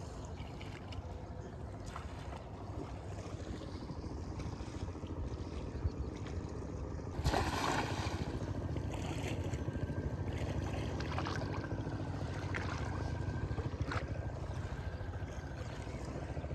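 Steady low water and wind noise in shallow floodwater. About seven seconds in, a thrown cast net hits the water with a loud splash that fades over a second or so, and a few faint splashes follow later.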